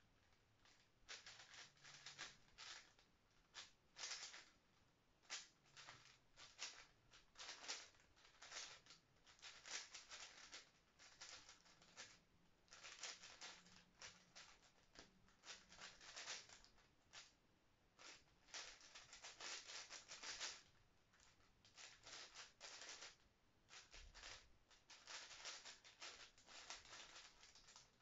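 5x5 plastic speed cube being turned quickly by hand, a faint, fast run of clicking and clacking from its layers, in bursts with short pauses between them.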